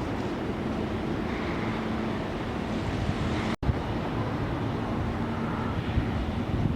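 Steady jet engine noise from the airport, mixed with wind buffeting the microphone, with a faint steady hum underneath; the sound cuts out for an instant about halfway through.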